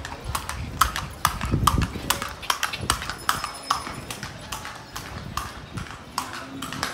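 A horse's hooves clip-clopping on a cobblestone street as a horse-drawn calesa passes close by. The hoofbeats are loudest in the first two seconds, then fade as the carriage moves away.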